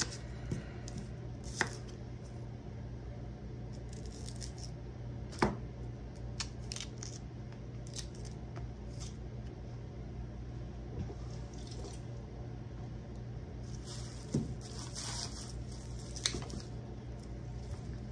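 Kitchen knife cutting small onions on a wooden cutting board: scattered sharp taps of the blade on the board, the loudest about five and a half seconds in, and crisp rustling of papery onion skins being peeled off, strongest near the end. A steady low hum runs underneath.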